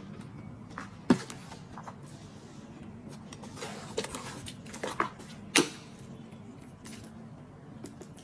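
Handbag hardware and leather being handled: the metal clasp and the strap's metal clips click and clink. There are scattered clicks, with two sharp ones about a second in and about five and a half seconds in.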